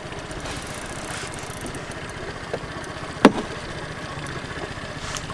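A small boat motor idling steadily, with water lapping and one sharp knock a little after three seconds in.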